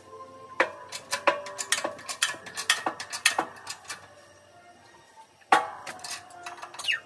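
Sped-up time-lapse sound of a bottle-jack shop press pressing a bearing race into a bus front hub: a quick run of sharp metallic clicks and clinks, a brief lull, then a loud clink and more clicks near the end.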